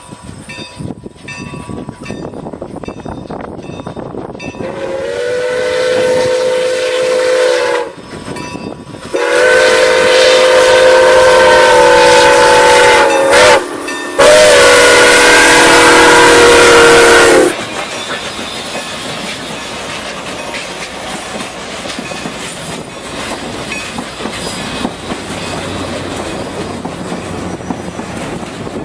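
Steam whistle of Milwaukee Road 261, a 4-8-4 Northern steam locomotive, sounding a chord of several tones in long loud blasts for the grade crossing. The blasts start about five seconds in, with the loudest two between about nine and seventeen seconds in, split by a brief break. After that the locomotive and its passenger cars rumble steadily past on the rails with a clickety-clack.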